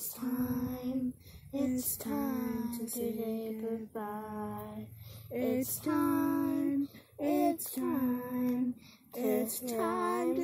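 A young girl singing a slow goodbye song unaccompanied, in long held notes with short breaths between phrases.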